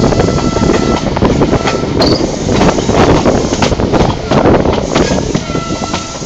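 First Great Western sleeper train running, heard from on board: a steady, loud rumble and clatter of wheels and coach. A thin wheel squeal comes at the start and again near the end.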